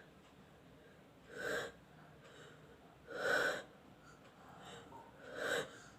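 A woman's sharp, wheezy in-breaths, three of them about two seconds apart: the gasping build-up to a sneeze brought on by tickling her nose with broom bristles.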